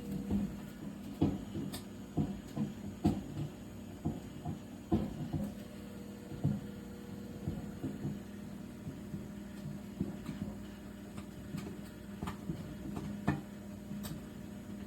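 Microwave oven running: a steady low hum with irregular knocks and bumps scattered through it.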